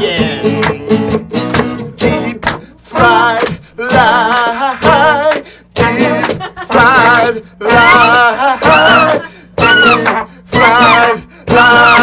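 An acoustic guitar strummed hard in a fast rhythm, with a man singing loudly over it from about three seconds in: an acoustic punk song played live.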